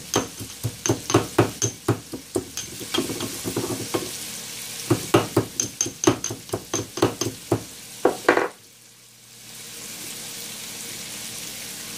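Garlic and ginger being pounded to a light crush: quick sharp strokes, about three to four a second, in two runs with a pause between, over oil frying in the pan. The strokes stop about two-thirds through, and a steady frying sizzle carries on.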